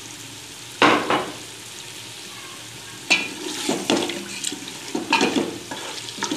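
Spoon stirring and scraping through mutton masala in a pressure-cooker pot: one scrape about a second in, then a run of scrapes from about three seconds on. Underneath is a low sizzle of the masala frying in oil.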